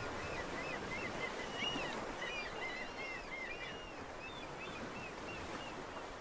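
Many birds calling in quick, short chirps over a steady wash of sea and surf; the chirping dies away shortly before the end as the whole sound slowly fades.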